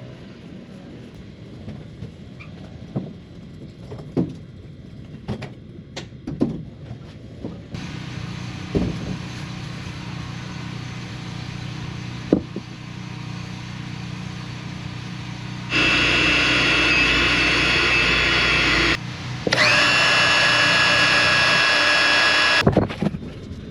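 Scattered knocks over a low steady hum, then a power tool running loud with a high whine in two runs of about three seconds each, a brief stop between them, followed by more knocks.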